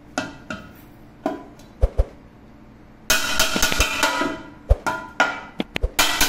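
Metal striking an aluminium pressure-cooker body against an anvil, as its rim is beaten into shape so the lid seals without leaking. Sharp single knocks come first, then a dense spell of ringing metal clatter a little past three seconds in that lasts about a second, then more single knocks.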